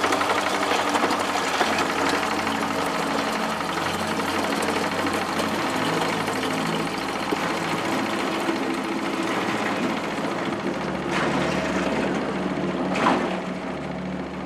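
Engine-driven borehole pump running with a steady mechanical knock, its rod working up and down while water pours out of the outlet pipe. A couple of sharp clanks near the end.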